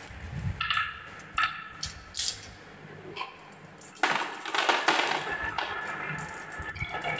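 Glass marbles clinking lightly a few times, then from about four seconds in a stream of them rolling and rattling down a wavy wooden marble-run track.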